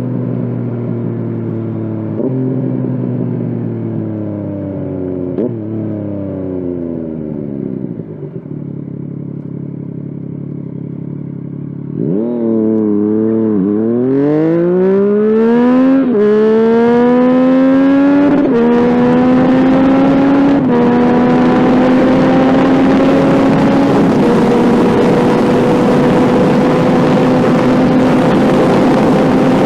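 Yamaha FZ-09 (MT-09) inline three-cylinder engine. It first slows with a few downshifts, each a quick rev jump followed by a falling pitch. About twelve seconds in it accelerates hard through the gears, the revs climbing and dropping at each upshift, then holds a steady high cruising note with wind noise building.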